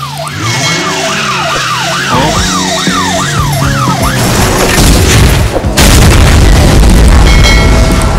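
A police-style siren yelping rapidly up and down, about two to three sweeps a second, mixed with music. About four seconds in it gives way to loud, rumbling crash-like noise, with a sudden louder hit near six seconds.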